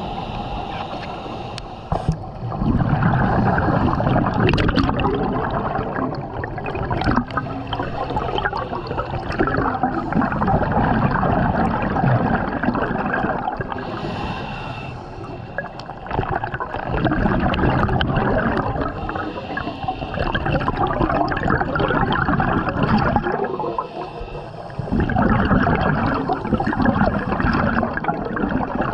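Scuba diver breathing through a regulator underwater: long bursts of gurgling exhaled bubbles every seven to eight seconds, with short quieter gaps between breaths.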